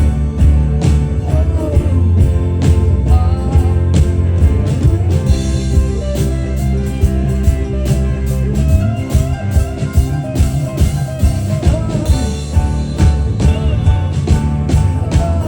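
Live rock band playing: electric guitars, bass and drums at a steady beat, with some singing.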